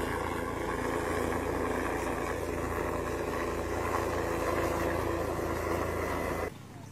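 A steady mechanical hum, like an engine idling, with a low drone under it. It cuts off abruptly about six and a half seconds in.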